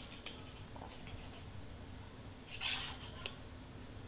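Faint handling of cardstock: a few small ticks, then a short papery brush about two and a half seconds in, over a low steady background hum.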